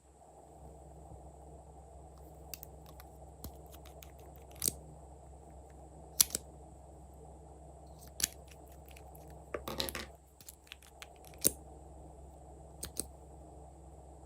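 Glossy slime being pressed and poked by hand, giving scattered sharp clicks and pops, with a short run of crackling about ten seconds in, over a steady background hum.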